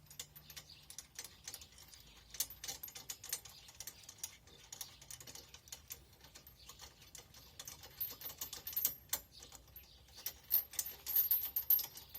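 Light irregular metal clicking and clinking of a tow safety chain being handled and hooked up, growing louder near the end.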